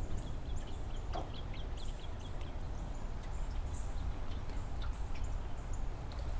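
Small birds chirping and twittering in short, scattered calls over a steady low rumble.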